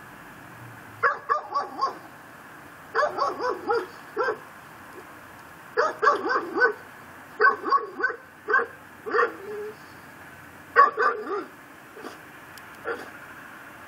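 Pit bull barking in short bursts of several quick barks, with pauses of a second or two between bursts.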